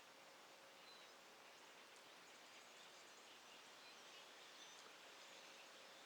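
Near silence: faint outdoor background hiss with a few faint, brief bird chirps.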